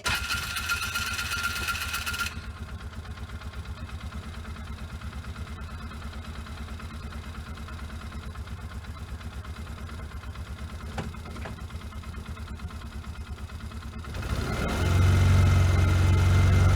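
Polaris vehicle engine. A high steady whine for the first two seconds cuts off suddenly. The engine then idles with an even low pulse, and about fourteen seconds in it revs up and runs louder.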